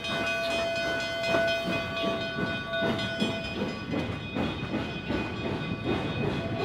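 Narrow-gauge steam locomotive working, its exhaust chuffing in a steady rhythm of about three beats a second over hissing steam.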